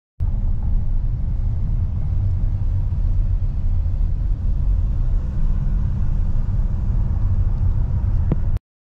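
Steady low rumble of a Hyundai Starex camper van on the move, heard from inside the cabin: engine and road noise. It starts and stops abruptly, with a short click just before it cuts off.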